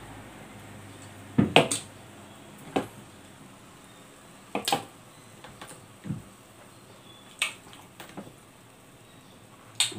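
A handful of short knocks and clinks on a tabletop, the loudest a double knock about one and a half seconds in: a glass of freshly poured cola and the soda bottle being set down on the table, then a few lighter taps.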